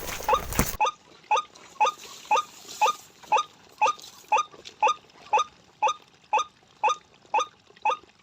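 White-breasted waterhen (ruak-ruak) call, one short rising note repeated evenly about twice a second. A rough rustling noise stops in the first second.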